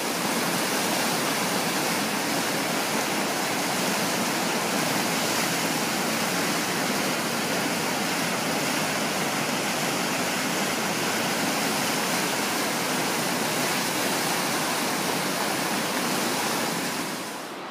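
The Enza river in full flood: fast, muddy floodwater rushing steadily and loudly. The rushing drops in level just before the end.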